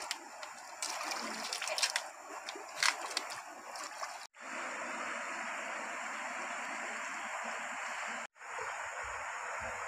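Shallow river water running over rocks, with small splashes from hands dipping in the water during the first few seconds, then a steady even flow. The sound drops out briefly about four seconds in and again about eight seconds in.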